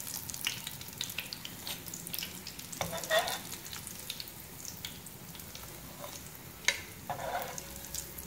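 Breaded potato cutlets shallow-frying in hot oil: a steady sizzle with many small pops and crackles. Metal tongs lift the cutlets out of the aluminium pan, giving a couple of louder sizzling scrapes and a sharp click about two-thirds of the way through.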